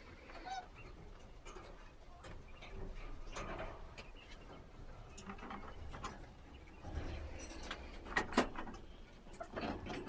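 Poultry calling: scattered short calls and sharp noises, the loudest pair about eight seconds in.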